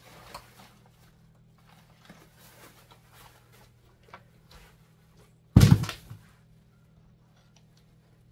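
Quiet rustling and handling of papers and small items, with one loud, brief thump about five and a half seconds in.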